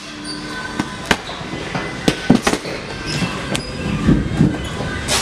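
Boxing gloves punching a hanging heavy bag: irregular sharp thuds and slaps, some in quick runs of two or three, coming thicker in the second half.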